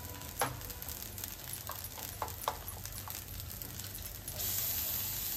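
Dosa batter sizzling faintly on a hot iron tawa, with a few light utensil clicks; about four seconds in the hiss steps up and turns steadier.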